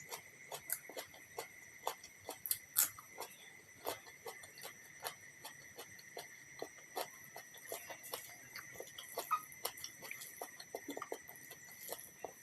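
Close-miked eating sounds: irregular wet mouth smacks and chewing clicks, several a second, over a faint steady high-pitched tone.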